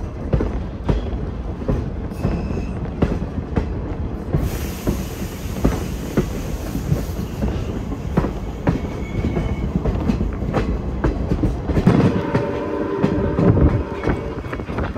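Steam-hauled passenger train rolling along: a steady rumble of the coaches with irregular clicks from the wheels over the rail joints. A high hiss comes in about a third of the way through, and several held pitched tones sound together near the end.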